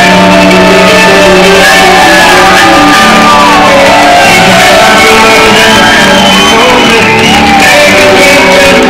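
A rock band playing loud live music: electric guitar with sliding notes over the band, with a voice shouting over it.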